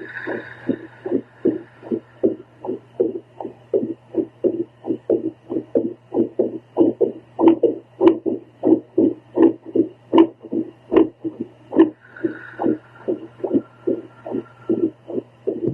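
A woman's heartbeat picked up by a handheld home Doppler: a rapid train of whooshing pulses, about three a second, over a steady low hum from the device.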